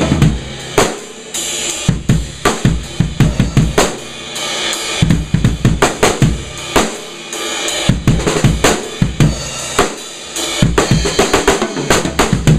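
A ddrum Journeyman 13x7 snare drum, tuned low with the snares on, played in drum-kit patterns with bass drum and cymbals: many sharp hits in quick clusters, with short gaps between the phrases.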